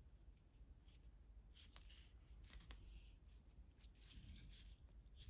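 Faint rustling and scratching of a crochet hook and yarn being worked through coarse jute twine stitches, with a few soft ticks.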